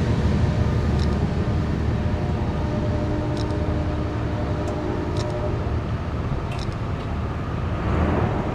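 Freight train of grain hopper cars rolling past, a steady low rumble with a few faint clicks.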